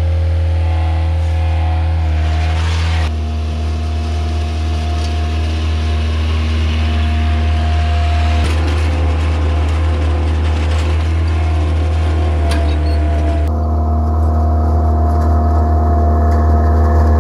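Toro Reelmaster 6500-D fairway reel mower running, its diesel engine droning steadily as it drives across turf with the reel cutting units mowing. The drone shifts abruptly about three seconds in and again near the end.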